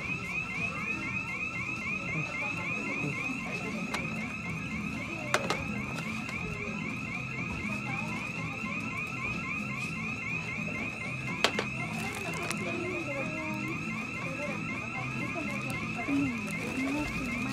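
A continuous electronic alarm warbling rapidly at a steady high pitch, with two sharp clicks about five and eleven seconds in.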